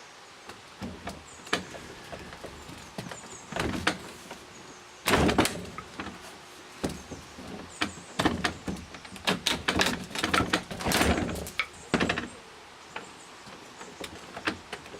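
Bolt cutters being squeezed into the brass body of a padlock: irregular creaks, crunches and sharp metal clicks as the jaws bite and are repositioned, with the loudest bursts about five seconds in and through a busy stretch in the second half.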